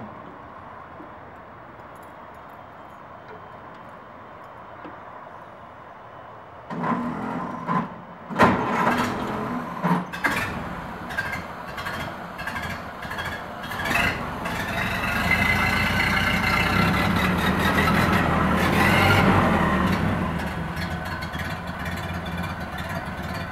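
A thump at the start. About seven seconds in, a 1931 Ford Model A's four-cylinder flathead engine is cranked on the starter and catches, running unevenly at first; it is revved up and back down, then settles to a smooth idle near the end.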